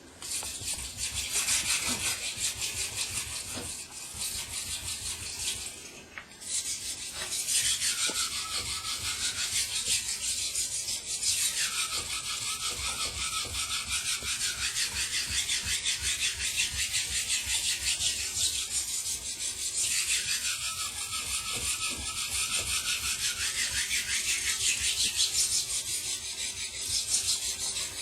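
Steel knife blade being ground by hand on a wet Japanese water stone, rapid back-and-forth strokes making a steady gritty rasp. There is a brief pause about six seconds in. The edge is being ground back past its chips.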